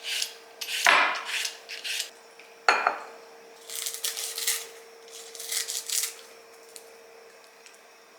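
Dishes and cutlery clinking and clattering in a string of short bursts over the first six seconds, with a faint steady hum underneath.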